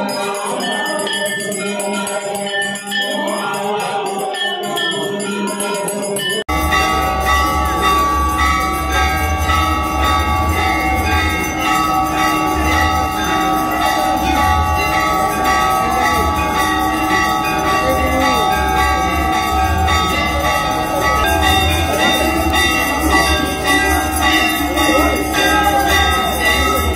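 Devotional singing and music, then after a cut about six seconds in, Hindu temple bells ringing without pause for the aarti, over a steady low rumble.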